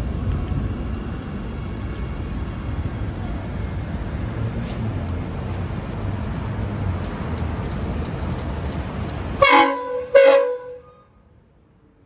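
Train horn sounding two short blasts, close together, after a steady low rumble that stops abruptly just before the first blast.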